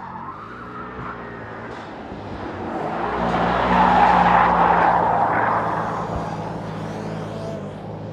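Mercedes-AMG GT 63 S E Performance's twin-turbo V8 running hard as the car slides through a corner with its tyres squealing. The sound swells to its loudest about four seconds in as the car passes close by, then fades as it drives away.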